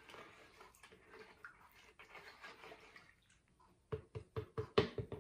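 Spatula stirring a plastic pitcher of lye solution to dissolve leftover citric acid: soft swishing and scraping, then about four seconds in a quick run of about eight sharp taps against the pitcher.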